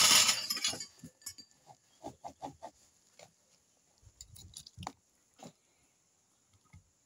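A burst of clatter in the first second, then sparse light clicks and scrapes of a table knife against a metal plate as pizza is cut.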